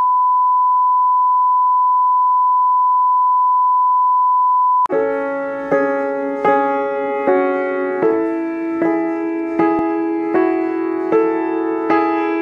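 A steady 1 kHz test tone, the reference tone that goes with colour bars, for about five seconds. It cuts off abruptly and piano chords start, struck evenly about every 0.8 seconds.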